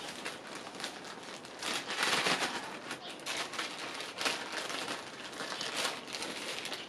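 Plastic bag crinkling with small clicks and rattles, as someone rummages through a bag of screws.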